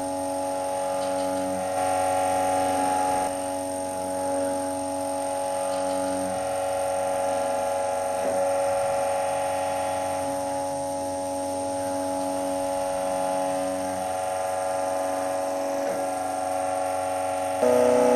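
Electric drive of a torsion testing machine running, a steady whine of several tones as its chuck twists a plate-fixed bone specimen. It gets louder, with a change of tone, just before the end.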